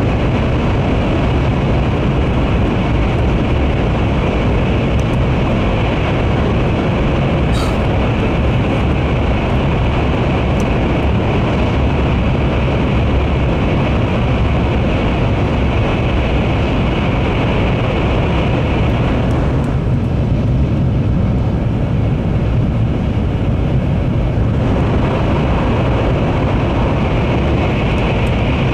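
Interior running noise of a Series N700 Shinkansen at speed in a tunnel: a steady, loud rumble and rush of wheels, track and air. The hiss thins out for a few seconds past the middle.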